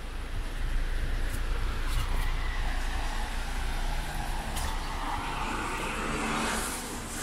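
A car driving past on a rain-wet street, its tyres hissing through the water, over steady rain.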